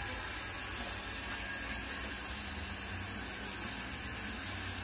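Steady, even hiss with a low hum beneath it, unchanging throughout.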